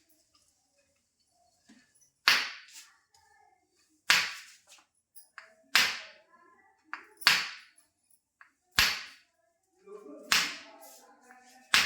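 A series of about seven sharp smacks, one roughly every second and a half, each starting suddenly and trailing off briefly.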